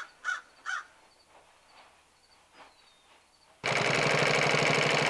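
Three harsh bird calls in the first second over faint outdoor birdsong. About three and a half seconds in, an industrial sewing machine starts up abruptly and stitches heavy material at a fast, even rate, much louder than everything before it.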